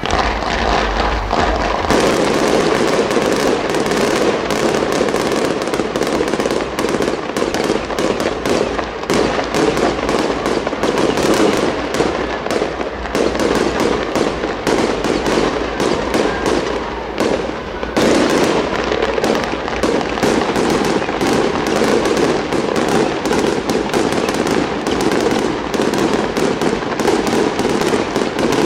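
Fireworks display: a dense, continuous barrage of rapid bangs and crackling from aerial shells and fountains, with hardly a gap between reports. The firing thickens about two seconds in, eases briefly near eighteen seconds, then picks up again.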